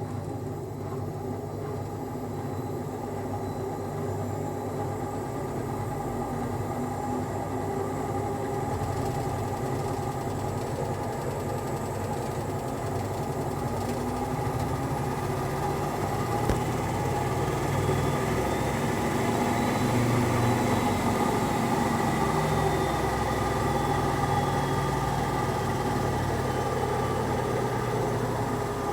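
Washing machine drum on its spin cycle, rattling with an unbalanced load and bad bearings. The rumble grows louder as the drum speeds up, peaking past the middle, with a faint whine that rises and then falls.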